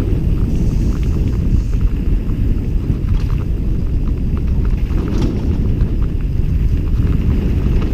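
Mountain bike running fast down a dirt and rock trail, heard through a helmet-mounted camera: a steady rumble of wind on the microphone and tyres on dirt, with knocks and rattles from the bike over rocks, the clearest about three and five seconds in.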